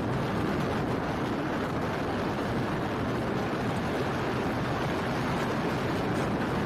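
Steady rushing noise of a vehicle driving through typhoon wind and rain on a wet road, with no breaks or changes.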